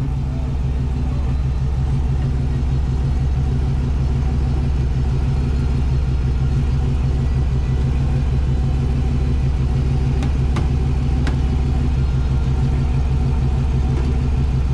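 Off-road vehicle engine idling steadily, with two faint ticks a little past ten seconds in.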